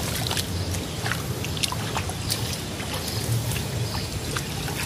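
Hands feeling and splashing through shallow muddy water, with many small scattered splashes and trickles, over a steady low rumble.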